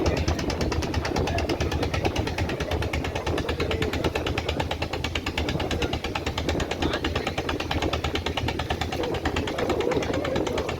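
A boat's engine running steadily, with a rapid, even knock.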